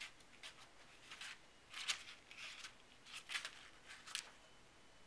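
Paper pages of a textbook rustling and crinkling as a kitten paws and bats at them: a series of short, crisp rustles, the loudest about two and three seconds in.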